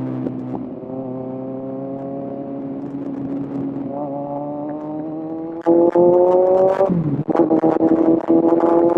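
Kawasaki Z1000's inline-four engine pulling under a motorcycle ride, its pitch creeping up; about six seconds in it gets much louder as the throttle opens, dips in pitch for a moment about a second later as at a gear change, then holds on with a choppy, buffeted sound.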